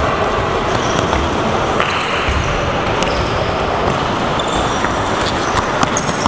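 Handballs bouncing on a sports hall floor over a steady, loud background noise, with a few sharp clicks.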